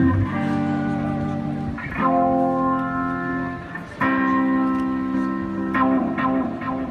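Amplified guitar played through effects pedals: four chords strummed about two seconds apart, each left to ring out, the last one fading away near the end.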